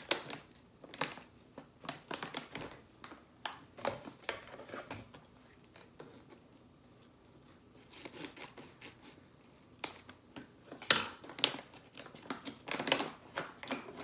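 Crinkling and rustling of a whole-bean coffee bag being handled, then scissors snipping the bag open in the second half, with a quieter pause a little before the middle.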